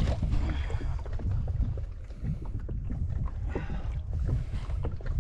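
Wind rumbling on the microphone, with brief splashing and sloshing of water against the boat's side as a largemouth bass is let go, strongest a little past three and a half seconds in.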